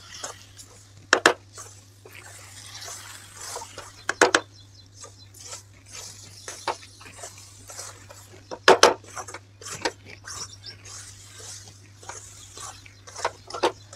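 Wooden spatula stirring and scraping a thick flour-and-jaggery dough around a metal kadai, with irregular sharper knocks of the spatula against the pan, the loudest about a second in, about four seconds in and near nine seconds. The mixture is being cooked down on low flame into a dough.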